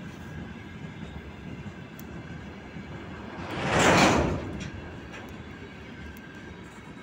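Freight train of open gondola wagons rolling past, a steady rumble with a few faint wheel clicks. About halfway through, a loud rushing hiss swells up and fades within about a second.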